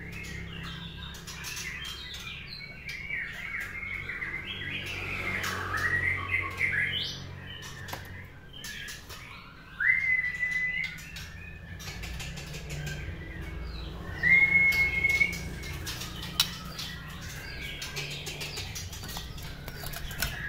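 White-rumped shama singing: a run of varied warbled phrases, then two loud whistled notes that each rise and then hold steady, about ten and fourteen seconds in. Short clicks and flutters from the bird moving about its cage are scattered throughout.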